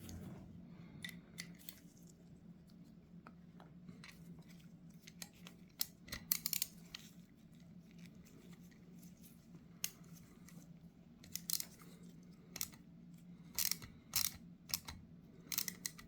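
Small metal tools and parts of a Zenith 35/40 INAT carburetor float bowl clicking and scraping during hand disassembly, in scattered sharp clicks with a few louder clusters. A faint steady hum runs underneath.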